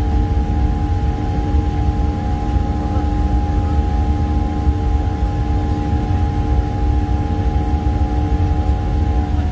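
Airliner engine noise heard inside the passenger cabin: a steady low rumble with several steady humming tones over it, some of which drop out near the end.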